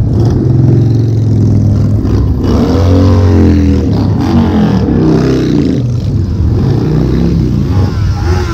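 A line of motorcycles, mostly large cruiser and touring bikes, riding past one after another at close range, their engine notes rising and falling in pitch as each goes by.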